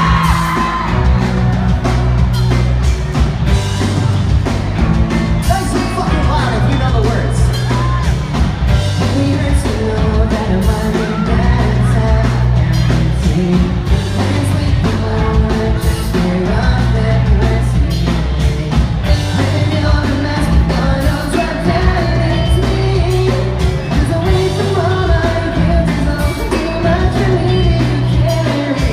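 Pop-punk band playing loudly: a singer over heavy bass and a steady drum beat.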